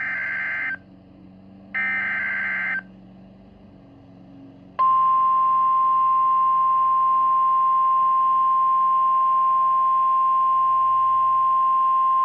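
Emergency Alert System SAME header: two buzzy, screeching digital data bursts about a second each, then about five seconds in the NOAA Weather Radio warning alarm, a single steady high tone held without a break, signalling that a warning broadcast follows.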